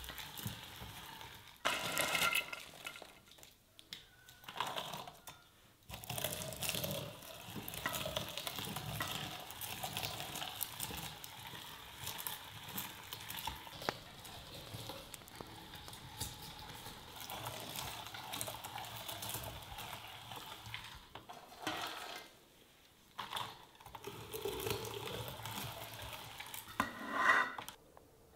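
Kitchen preparation sounds: stirring, with utensils knocking against bowls and pans, in several short stretches that change abruptly.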